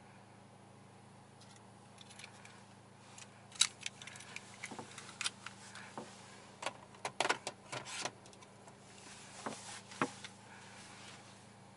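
Hand working the car's centre console controls: a run of small, sharp clicks and taps, the loudest about three and a half seconds in, over a low steady hum.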